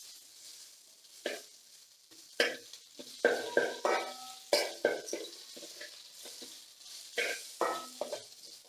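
Thuthuvalai (Solanum trilobatum) leaves and crushed pepper sizzling in ghee and oil in a pan while a spatula stirs and scrapes them, in short irregular strokes.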